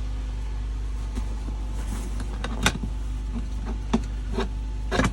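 A few sharp clicks and knocks of hand tools on metal, the loudest about two and a half seconds in, over a steady low hum.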